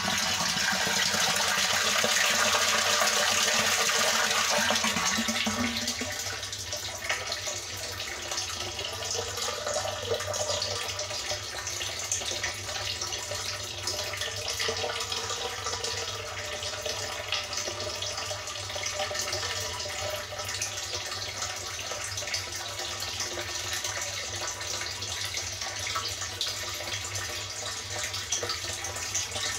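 A stream of water pouring from an inlet pipe into a partly filled tank, splashing steadily onto the water surface. It is louder for the first five or six seconds, then softer and steady as the stream thins to a trickle.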